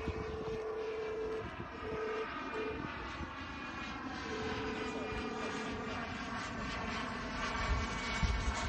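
Small turbine jet engine of a radio-controlled Avanti jet model in flight, a steady whine that slides slowly in pitch as the plane moves around the sky. A separate steady tone sounds on and off during the first six seconds.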